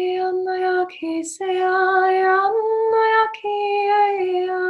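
A woman's voice singing long, held tones, with a quick breath about a second in. The pitch steps up a little past the middle and then settles back down.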